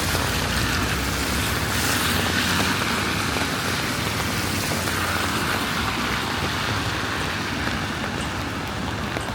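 Road traffic on a rain-wet city street: tyres hissing on the wet road and engines running, over falling rain. It eases slightly near the end.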